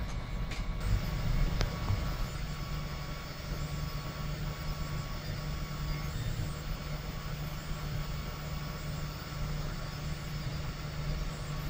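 Home-built 3D printer running mid-print: a steady low hum from its cooling fan and stepper motors. A few sharp clicks come in the first two seconds.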